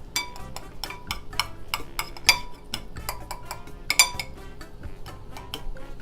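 Metal cookware clinking and scraping while caramelizing sugar is worked around a flan pan: a quick run of sharp, ringing metallic clinks, three or four a second, with louder knocks about two and four seconds in.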